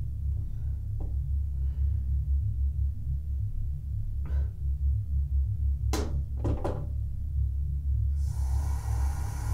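A low steady rumble, with two sharp knocks close together about six seconds in. A steady rushing noise begins near the end.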